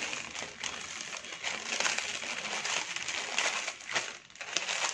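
Lay's potato chips being crushed by hand inside their plastic packet: a continuous crackling and crinkling of breaking chips and crumpling bag, easing off briefly about four seconds in.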